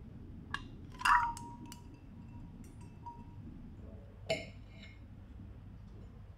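Light clinks of cutlery and tableware: a few sharp taps, the loudest about a second in leaving a short ringing tone, and another a little past four seconds, over a steady low hum.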